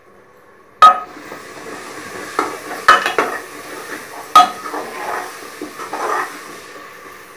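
Metal spoon stirring potatoes into frying masala in an aluminium pressure cooker. It scrapes and gives several sharp clanks against the pot, over a steady sizzle of frying.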